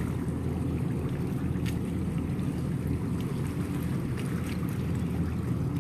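Steady low rumble of a Coast Guard patrol boat's engine as it runs out of the harbour.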